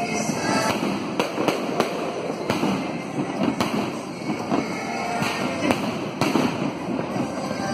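Fireworks going off overhead: a continuous crackle broken by sharp bangs every second or so.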